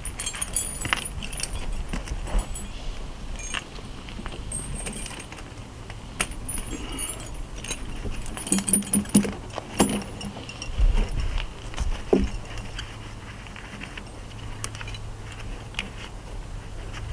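Steel truck tire snow chains clinking and jangling in irregular bursts as the end hooks are fastened into the chain links, with a few louder knocks about halfway through.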